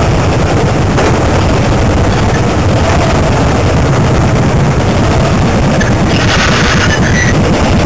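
Classic motorcycle engines running at road speed, heard from a moving bike with heavy wind rumble on the microphone. A brief hiss comes in about six seconds in.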